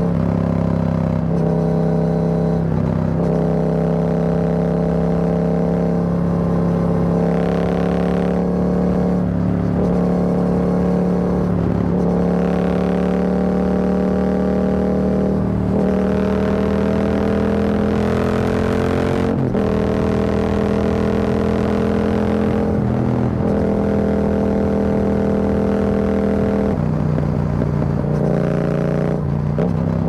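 Yamaha XSR700's parallel-twin engine running through an Akrapovic carbon full exhaust with the dB killer removed, heard from the rider's seat at highway speed. The exhaust note holds a steady pitch that creeps slightly upward, breaking off briefly every few seconds and picking up again.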